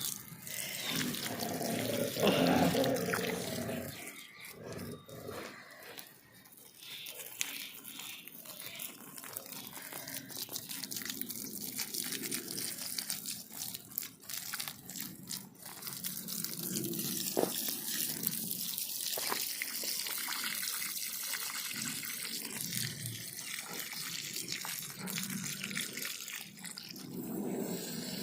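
Water splashing and trickling, with scattered small clicks and knocks.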